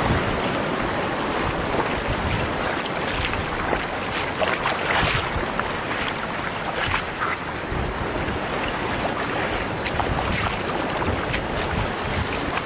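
Shallow surf washing over a rocky reef flat, with frequent small splashes and wind buffeting the microphone.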